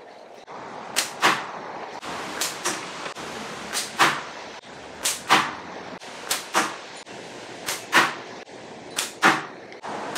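Slingshot shots fired in quick succession, about eight of them: each is a sharp snap of the flat bands on release, followed about a quarter second later by the crack of the 9.5 mm steel ball hitting the can in the catch box.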